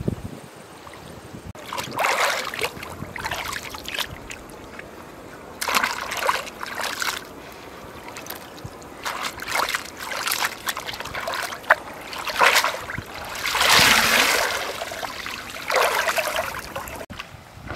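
River water splashing and sloshing in irregular bursts, from fish and mushrooms being rinsed in a woven basket at the water's edge and from wading in the shallows.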